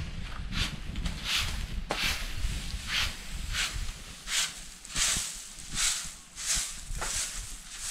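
Dry rice straw rustling and crunching in a series of short swishes, roughly one or two a second and unevenly spaced, with one sharp knock about two seconds in.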